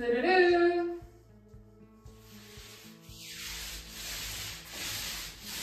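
Paint roller spreading wet paint across a wall in repeated back-and-forth strokes, a rhythmic rasping swish starting about two seconds in.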